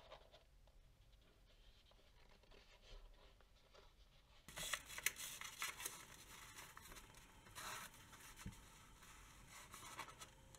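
Near silence at first, then from about four and a half seconds in, faint rustling, scraping and light taps as a corrugated cardboard box is handled and an elastic band is stretched around it.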